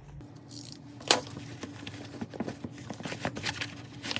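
Hands handling a cap and small kit parts: light rustling with scattered small clicks and ticks, the sharpest click about a second in.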